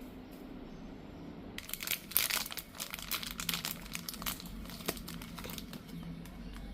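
Packaging being crinkled and handled: dense crackling that starts about a second and a half in and dies away near the end, over a faint low steady hum.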